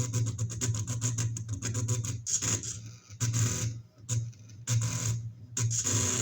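Stepper motors salvaged from DVD drives driving a homemade mini CNC plotter, buzzing with fast, even stepping clicks over a steady hum. The motion stops and starts several times in the middle, then runs on steadily again near the end.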